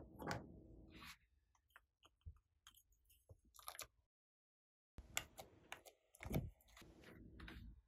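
Faint crackling and clicking of foam-bead slime being pressed and squished by hands in a glass dish, in scattered short crackles. The sound cuts out completely for about a second midway.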